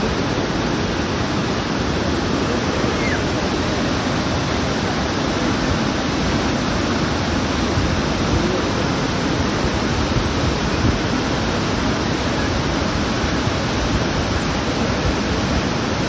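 Steady rush of a mountain river's small waterfall, water pouring over rock ledges in white cascades.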